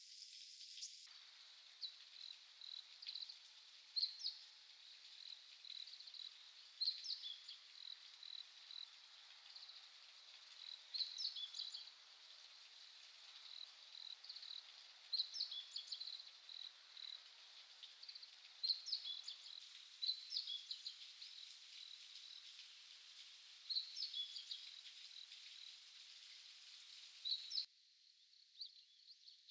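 Short, sharp bird call notes repeated irregularly over a steady high chirping of autumn insects.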